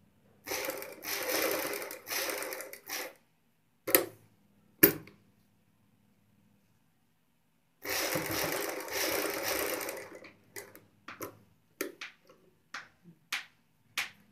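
Sewing machine stitching in stop-start runs: a few short runs, two sharp clicks, then a longer run, and near the end a string of short bursts as it is inched along a few stitches at a time.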